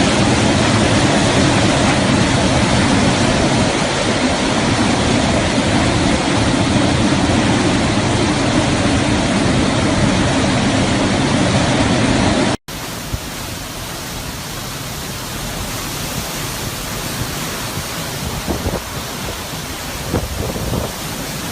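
Steady rushing noise of hurricane wind and rain, loud and heavy in the low end. About twelve and a half seconds in it cuts abruptly to a second, quieter stretch of rushing wind and rain, with a few faint knocks near the end.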